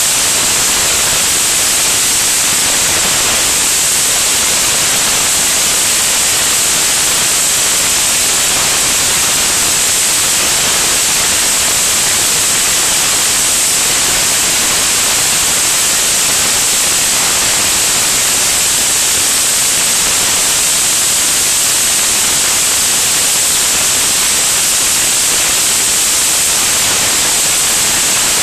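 Steady loud hiss of air rushing past a camera mounted under an aircraft's wing in flight. The hiss is strongest in the treble, with no engine note and no changes.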